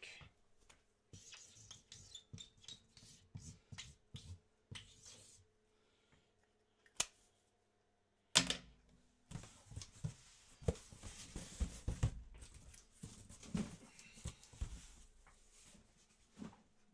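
A cardboard box being handled and shifted: scattered clicks and rustles, a sharp knock about eight seconds in, then several seconds of cardboard scraping and bumping.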